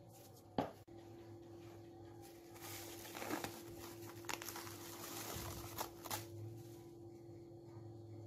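A single sharp click just under a second in, then plastic cling film crinkling and crackling as it is peeled off a glass bowl, with several sharp crackles between about 2.5 and 6 seconds in, over a faint steady hum.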